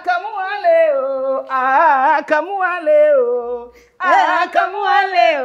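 A voice singing unaccompanied, holding long notes that waver in pitch. It breaks off briefly just before four seconds in, then carries on.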